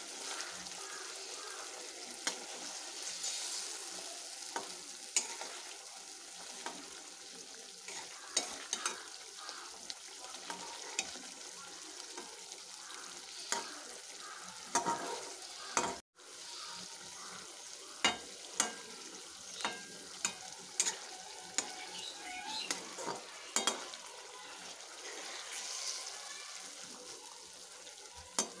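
Flat spatula scraping and clicking against a metal kadai as fish pieces in a thick mustard-poppy seed gravy are turned, over a low steady sizzle of the curry simmering on turned-down gas.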